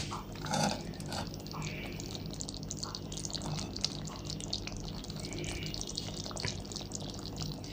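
Thick chicken curry gravy simmering in a kadhai on a low flame: many small bubbles popping and plopping, with a few soft sounds of a steel ladle moving through the gravy in the first second.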